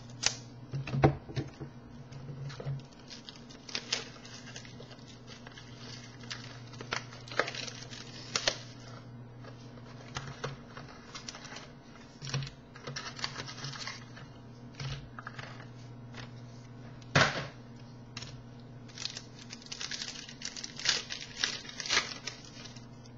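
A trading card box and pack wrapper being handled and opened: irregular crinkling, tearing and sharp crackles, the loudest about 17 s in, over a low steady hum.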